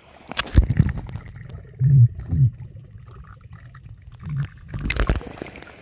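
Pool water splashing and sloshing around a camera held at the waterline as a swimming puppy paddles past. Sharp splashes come about half a second in and again near the end, with muffled underwater gurgling in between while the camera is submerged.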